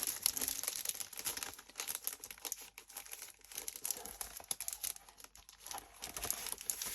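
Plastic packaging crinkling and paper rustling as a pack of designer series paper is opened and its sheets handled, in a run of irregular crackles and small clicks.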